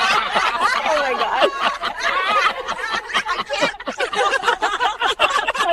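Several people laughing and chuckling together.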